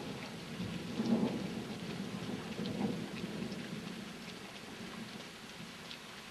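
Steady rain falling, with single drops striking close by, under a low rumble of thunder that swells about a second in and dies away over the next few seconds.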